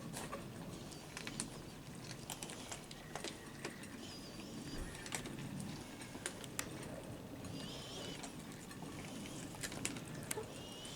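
Cats eating offered food: scattered sharp clicks and crunches at irregular intervals over a steady low background, with a few faint wavering high chirps.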